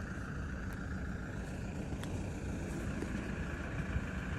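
Steady running noise of a vehicle: an even low rumble with a faint steady hiss above it and a few faint ticks.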